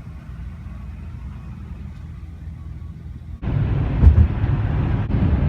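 Low, steady vehicle engine rumble with no pitch changes. It jumps abruptly louder about three and a half seconds in, with a single knock shortly after.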